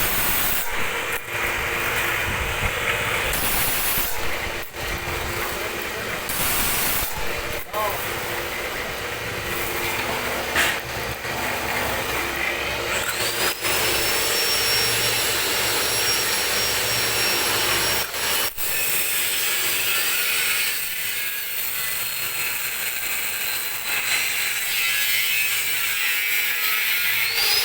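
Satay skewer slicing machine running: a steady motor hum with rough cutting noise, briefly broken off several times.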